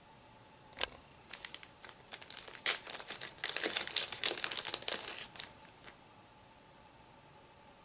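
Crinkling of a clear plastic zip-top bag of chenille being handled: a single crackle about a second in, then a dense run of crackling that stops about six seconds in.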